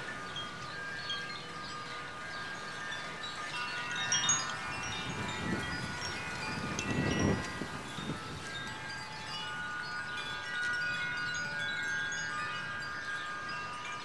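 Koshi wind chimes, several of them, struck by the breeze and ringing without pause in overlapping, sustained, melodic tones. A gust of wind rumbles on the microphone around the middle.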